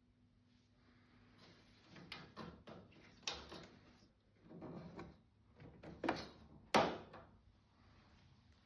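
Objects being handled: a run of irregular knocks, clunks and scrapes, with the sharpest near the middle and near the end. A faint steady hum lies underneath.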